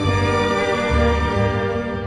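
Orchestral film score with held string notes led by violin, a deeper bass note coming in about a second in.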